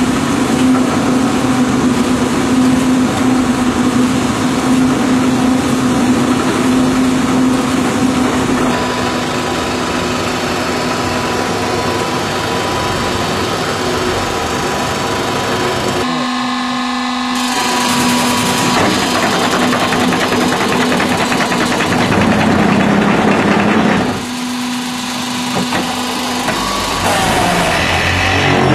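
QT6-15 concrete block-making machine and its feed conveyor and mixer running: a loud, steady mechanical din with a constant hum. The sound changes abruptly about sixteen seconds and again about twenty-four seconds in.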